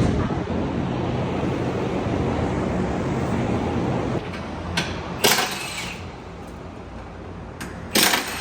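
Steady low drone of a car on the move, the BMW G82 M4 running on its stock exhaust, for about four seconds, then dropping away. Two short, loud hissing bursts follow, one past the middle and one near the end.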